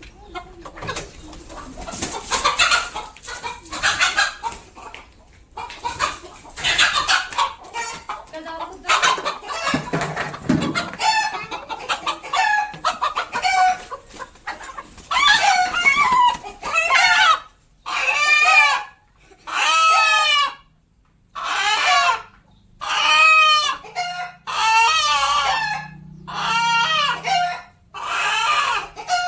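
Chickens clucking and roosters crowing: a jumble of calls in the first half, then a run of separate cock-a-doodle-doo crows of just over a second each, about one every two seconds.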